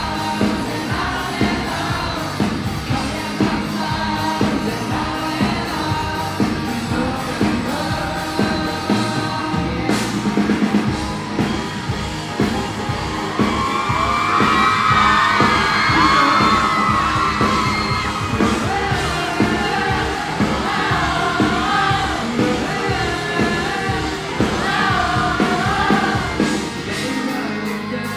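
Pop-rock band playing live: a sung lead vocal over drums, bass and guitar with a steady beat, the vocal strongest in the middle stretch.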